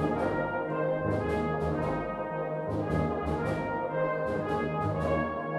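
Brass band playing: sustained brass chords over a bass line that comes and goes in short blocks of notes, with repeated sharp strokes cutting through.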